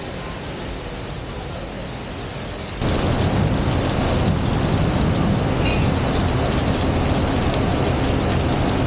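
Heavy rain pouring steadily. About three seconds in it turns abruptly louder and deeper, a dense rush of downpour.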